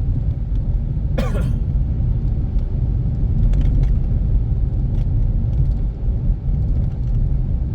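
Steady low rumble of road and engine noise inside a moving car's cabin, from a tuned Infiniti Q50. A brief higher-pitched sound cuts through a little over a second in.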